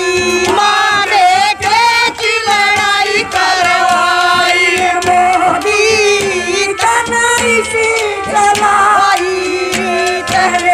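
A woman singing a Haryanvi folk song through a microphone and PA, with a steady hand-drum beat behind the melody.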